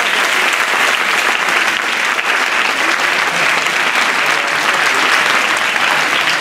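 Audience applauding: a steady, sustained wash of clapping from a large crowd.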